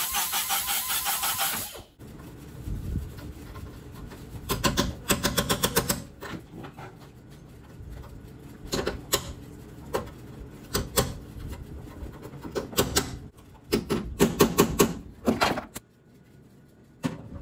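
A cut-off wheel cutting through the sheet-steel top of a car's frame rail, stopping about two seconds in. After that come scattered bursts of rapid metallic clicks and knocks as the cut-out section is worked loose by hand.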